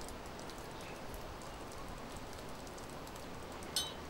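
Quiet outdoor background with faint light ticking, then a single short ringing clink near the end as a hand picks up a small tool from a wooden log.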